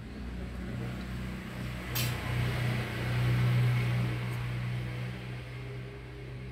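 A low, steady motor hum that grows louder toward the middle and then fades, with one sharp click about two seconds in.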